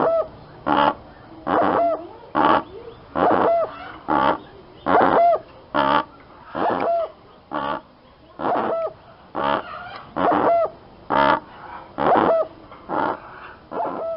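A bird calling over and over: short loud calls, about one a second, each ending in a slight upward hook.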